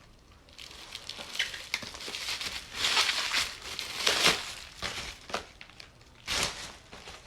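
Plastic parcel packaging being crinkled and torn open by hand in irregular bursts, loudest about three and four seconds in.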